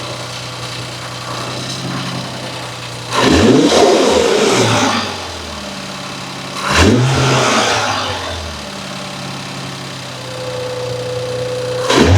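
Car engine idling, blipped twice with the throttle about three and a half seconds apart, each rev rising quickly and falling back to idle, with a steady whine coming in near the end and a third blip starting just as it ends.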